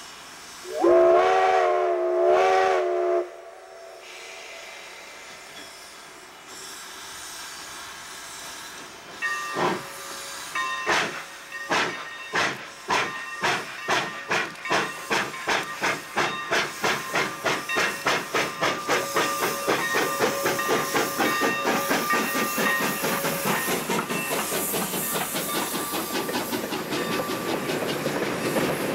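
Sierra Railway No. 28, a Baldwin 2-8-0 steam locomotive, sounds one long whistle blast. About ten seconds in it starts pulling its freight train: exhaust chuffs begin about one a second and quicken to several a second as it picks up speed. Near the end the chuffs blend into the steady noise of the freight cars rolling past.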